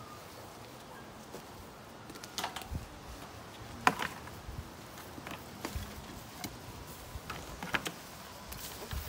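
Scattered clicks and knocks of a garden hose and cords being handled at an outdoor spigot and stepped over, the sharpest click about four seconds in.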